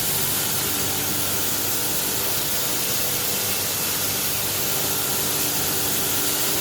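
Feed mill machine running steadily under power: a loud, even rushing noise over a constant motor hum.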